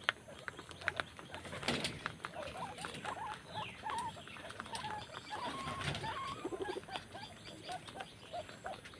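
Guinea pigs making many short, wavering squeaks and chuts while feeding close together, with scattered small clicks. The calls come more often toward the end.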